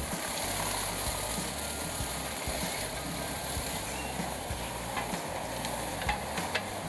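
Morbark 2755 wood chipper running under load with a steady mechanical noise as a tree top is fed in, with a few sharp cracks of wood breaking near the end.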